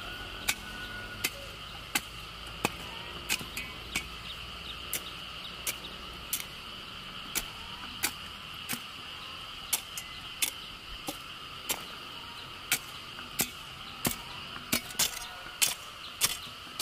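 Steady high-pitched insect chirring in a rural field, with sharp ticks about every three-quarters of a second that come closer together near the end.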